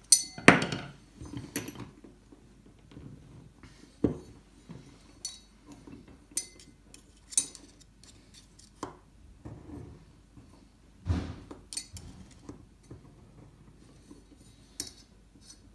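Screwdriver clinking and scraping against the inside of a steel oil filter canister as it pushes the retaining clip down the centre bolt. Scattered sharp metallic clinks, some ringing briefly, between quieter scrapes.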